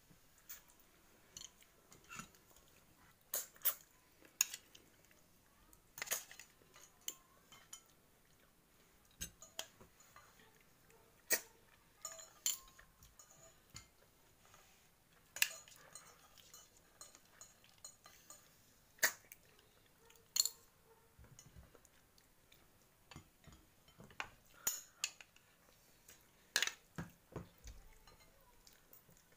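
Fork and spoon clinking and scraping against a ceramic plate during a meal: irregular sharp clinks, a few dozen, with quiet gaps between.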